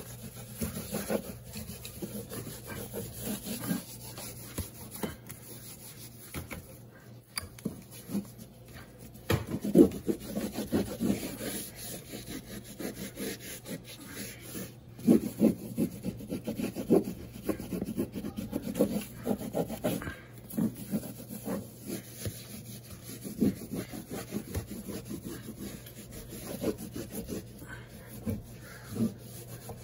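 A damp cloth wipe scrubbed back and forth over a textured painted wall, making a run of irregular rubbing strokes, a few harder ones about ten and fifteen seconds in.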